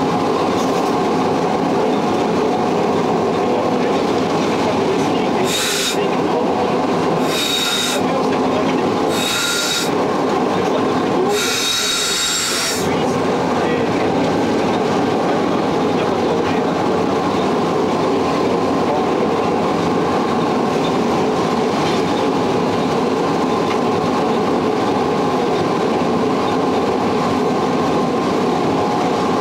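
The running noise of the 1932 Sécheron T9 electric locomotive, heard from its cab: a steady hum and rumble from the motors and from the wheels on the rails. Between about six and thirteen seconds in come four short, high-pitched wheel squeals, the last one the longest.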